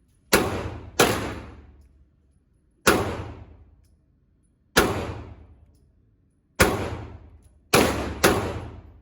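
Seven gunshots fired one at a time at a shooting range, unevenly spaced, with the last two about half a second apart. Each crack rings out and dies away over about a second.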